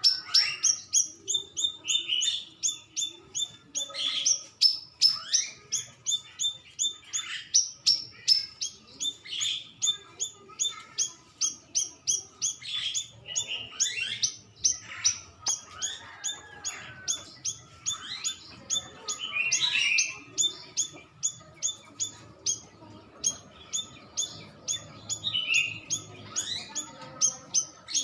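Cucak rawis birdsong played as a lure call: a fast, steady run of sharp chirping notes, several a second, with louder swooping whistled notes mixed in.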